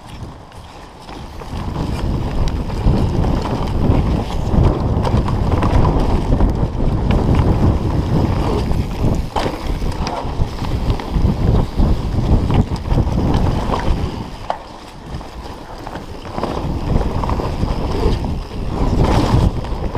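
Wind rushing over the camera's microphone as a mountain bike rides fast down a dirt forest trail, with tyre rumble and scattered knocks from the bike over bumps. It eases off for a moment about three quarters of the way through.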